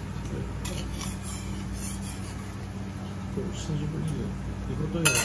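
Low background chatter of voices over a steady low hum, with a sharp metallic clink of a metal spatula on the steel teppan griddle near the end.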